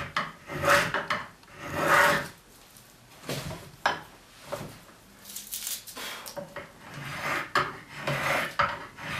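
Spokeshave cutting dry hard maple, shaving the end of a chair footrest down to its tenon: a run of uneven strokes, about one a second, each peeling off a shaving.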